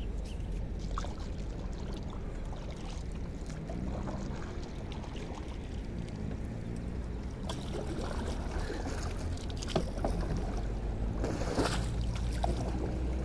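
Paddle strokes driving a small wooden canoe: water swishing around the blade, with scattered light knocks, over a steady low rumble. A louder swish of water comes near the end.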